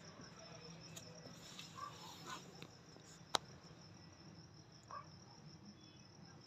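Crickets chirping faintly and steadily, a high, fast-pulsing trill. A single sharp click sounds a little over three seconds in.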